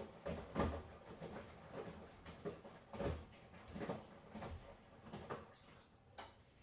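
Miele washing machine drum tumbling a wash load: irregular soft thuds and swishes of laundry falling inside the drum, growing fainter and stopping near the end, with one sharp click just before it goes quiet.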